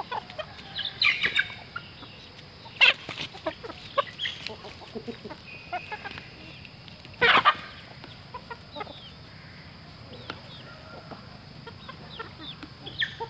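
Chickens clucking in short, scattered calls, the loudest about three seconds in and again about seven seconds in, with many faint ticks between.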